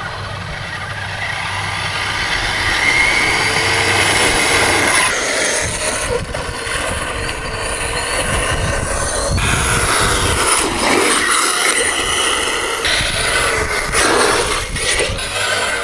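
Battery-powered 6x6 RC truck driving hard: its electric motor and gear drivetrain whine, changing in pitch with the throttle, over crunching gravel and dirt. Near the end the truck splashes through a muddy puddle.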